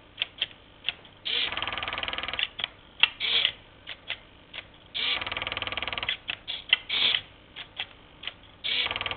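Homemade robotic knitting machine built from an old Epson inkjet printer, its motor and hobby servos whirring in bursts of about a second, roughly every four seconds. Short clicks and brief whirs come between the bursts as the needle carriage works along the needle bed.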